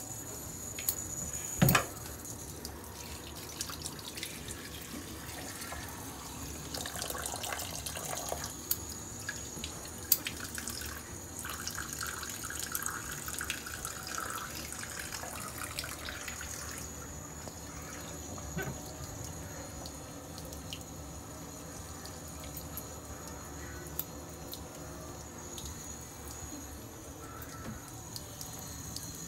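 Bathroom sink faucet running, with water splashing and dripping as hands wet a baby's hair under the tap. A sharp knock comes about two seconds in and another around ten seconds.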